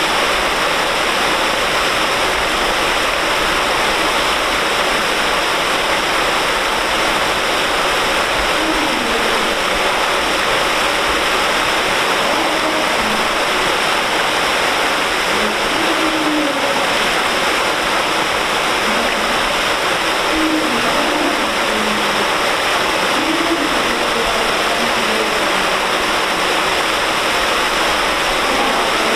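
Water pouring steadily in a wide sheet from an aqueduct trough under a footbridge and splashing into the canal below, a constant rushing splash.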